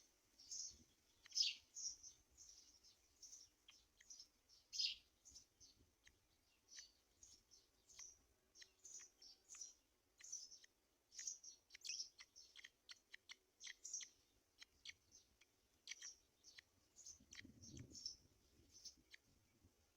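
Faint, irregular series of short, high-pitched bird chirps, several a second, with a brief low rumble near the end.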